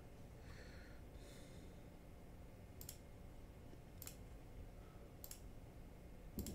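Quiet computer mouse clicks: about five single sharp clicks, roughly one a second, the last two close together near the end, over faint room tone.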